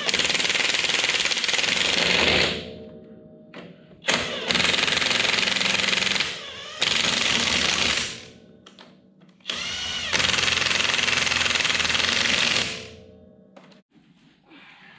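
Impact wrench hammering nuts down onto the truck's rear axle hub studs in four runs of a few seconds each, with short pauses between.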